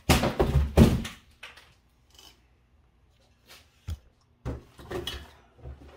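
Handling noises as the metal frame parts of a 3D printer are picked up and moved: a burst of rustling and knocking in the first second, then a few short knocks and clunks in the second half.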